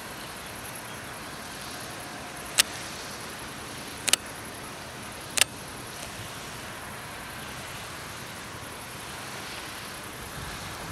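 Steady outdoor background hiss, broken by three sharp clicks about a second and a half apart, the first a little over two seconds in.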